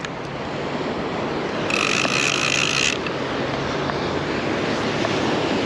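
Steady wash of surf and wind on the microphone at the shoreline. Near two seconds in, a high hiss starts and stops abruptly, lasting a little over a second.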